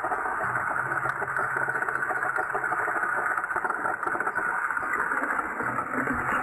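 Battery-powered plastic toy train engines running against each other, their small electric motors and plastic gears whirring steadily with a fast ticking texture.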